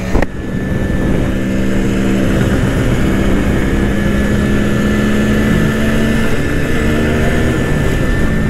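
A CZ 175 motorcycle's two-stroke engine held at steady high revs at top speed, with wind rushing over the microphone. There is a short sharp click just after the start.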